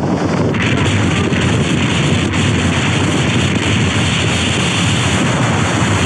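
Strong wind blasting across the microphone: a loud, continuous buffeting rumble with a hiss over it, turning hissier about half a second in.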